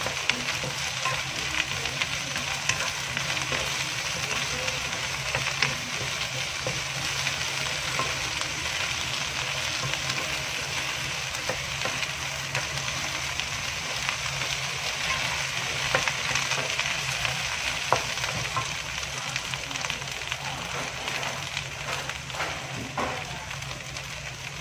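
Sliced okra with onions and chillies sizzling steadily as it stir-fries in hot oil in a nonstick wok, with a wooden spatula now and then clicking and scraping against the pan.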